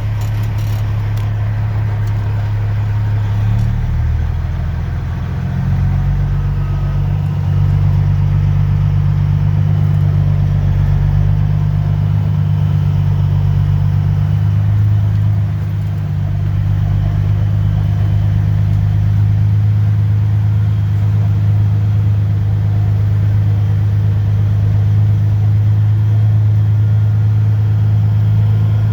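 A vehicle engine running at low speed with a steady low hum. It shifts in pitch and gets somewhat louder about six to seven seconds in, then holds steady.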